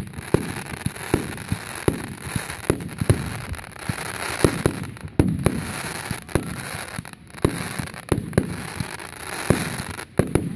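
Fireworks going off in quick succession: many sharp bangs, a few a second, over a steady crackle.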